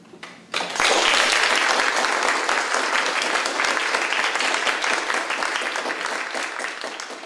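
Audience applauding, the clapping breaking out suddenly about half a second in and holding steady before tapering off near the end.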